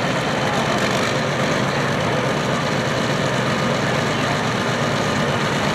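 Heavy diesel tractor engine idling steadily.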